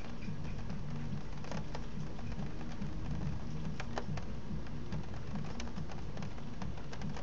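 Rain falling in a thunderstorm: a steady low rumbling wash with scattered sharp drops ticking close by.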